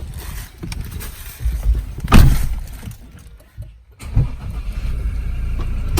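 A loud thump about two seconds in, then, after a short gap, a vehicle engine running steadily and growing louder.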